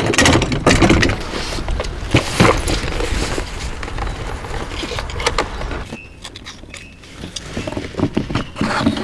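Clattering and knocking of gear being handled, busy and loud for about six seconds, then quieter with scattered knocks.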